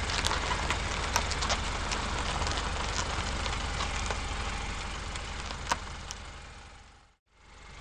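Car engine sound running steadily with a low rapid pulse under a hiss and scattered clicks. It fades out about seven seconds in, and a similar engine sound fades back in near the end.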